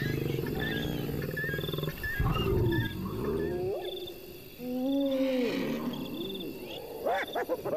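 Wild animals calling: low, pitched roars and grunts that rise and fall, strongest about two and five seconds in, with a run of short rising calls near the end, over a high chirp repeating roughly once a second.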